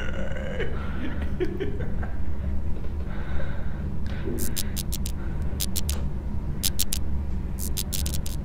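Horror-film sound design: a steady low drone, joined from about four seconds in by bursts of sharp crackling clicks.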